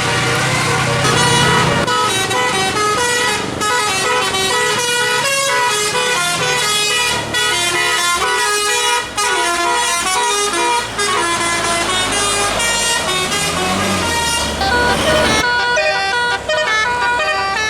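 Tour bus's 'telolet' musical air horn playing a fast melody, a new note every fraction of a second, over the bus engine. A short rush of noise comes near the end, and then the notes go on.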